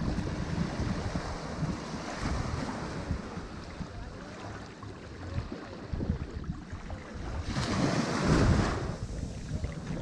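Sea waves washing onto the shore in a continuous rushing surf, with one wave breaking loudest about eight seconds in.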